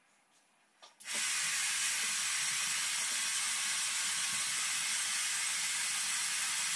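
Hair dryer running: a loud, steady rushing hiss of blown air that starts abruptly about a second in.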